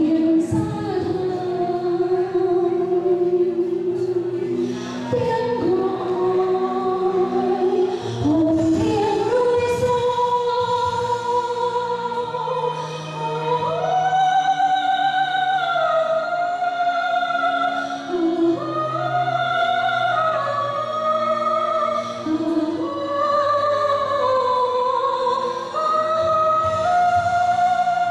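A woman singing a Vietnamese song into a microphone, with long held, gliding notes, over musical accompaniment.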